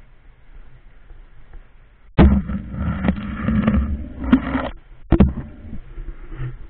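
Muffled handling noise from an underwater camera being moved about in an aquarium tank. About two seconds in, a sudden loud rubbing rumble with sharp knocks lasts a couple of seconds and stops abruptly, then one more sharp knock.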